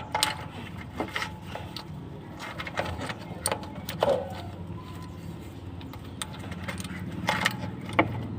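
Scattered metallic clinks and knocks of hand tools being handled while working on a stuck oil filter, over a steady low hum.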